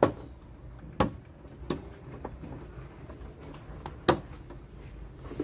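Front frame of an RCA flat-screen TV being pressed onto the panel: a series of sharp clicks and knocks, the loudest at the start, about a second in and about four seconds in.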